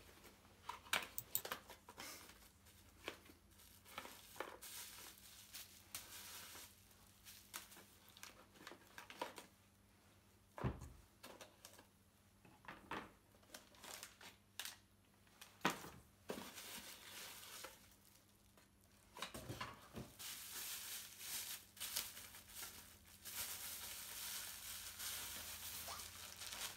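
Faint crinkling and tearing of packaging as a parcel of car parts is unwrapped, with scattered small knocks of handling. From about two-thirds of the way in the rustling becomes steadier.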